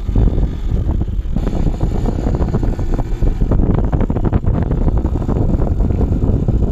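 Wind buffeting the microphone on a moving TVS XL moped, with the moped's small engine running underneath.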